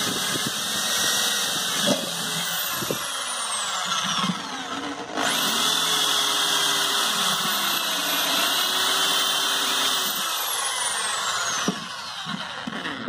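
Bosch power drill running, its bit boring into the centre of an old wet grinder drum. The motor slows briefly about four to five seconds in, speeds up again, and winds down near the end.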